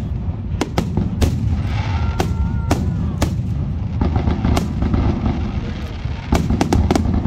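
Fireworks finale: aerial shells bursting one after another at irregular intervals, sharp bangs over a continuous low rumble, with a rapid cluster of bangs about six seconds in.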